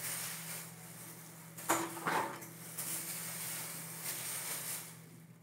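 Disposable plastic gloves rustling and crinkling as gloved hands work hair dye through wet hair, with two sharper crackles about two seconds in.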